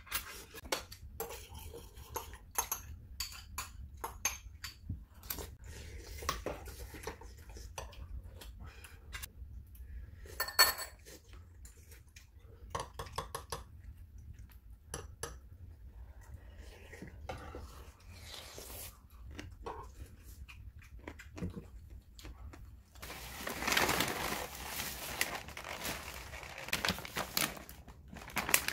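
Metal spoons and chopsticks clinking against ceramic bowls and a steel stew pot during a meal, many small separate clinks. Near the end, a plastic shopping bag rustles and crinkles as packaged groceries are handled.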